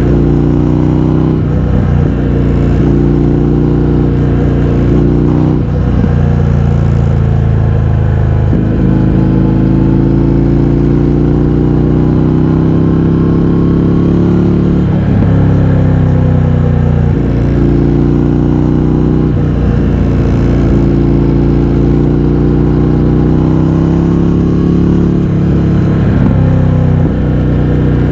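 Indian FTR 1200's V-twin engine through an Akrapovič exhaust with the baffles removed, pulling under way. The engine note climbs steadily, then breaks and drops sharply several times, as at gear changes or throttle-offs.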